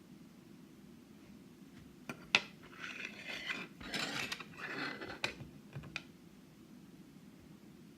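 Small metal clicks, then a few seconds of clinking and scraping as tools and the pins of a Yale Superior lock are handled while it is taken apart; a sharp click about two seconds in is the loudest.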